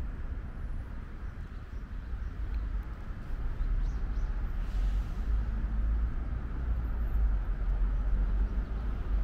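Outdoor urban ambience: a steady low rumble of distant city traffic that swells a little about three and a half seconds in.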